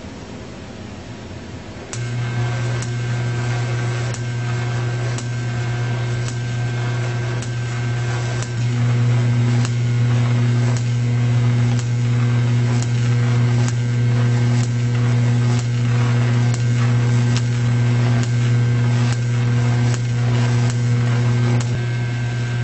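AC solenoid switched on about two seconds in and humming loudly and steadily, energising a 10,000-turn coil whose high voltage arcs across a rabbit-ear spark gap as a Jacob's ladder. The arc gives sharp snaps about once or twice a second. The hum grows louder about nine seconds in.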